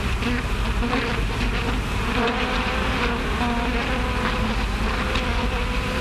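Swarm of bees buzzing steadily and densely, without a break.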